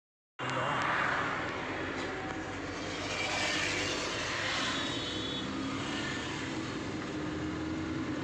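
A car heard from inside its cabin while being driven: a steady mix of engine, road and wind noise.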